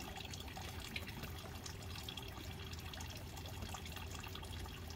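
A litter of newborn Jindo puppies suckling at their mother's teats: faint, wet, scattered smacking and clicking sounds over a steady low background.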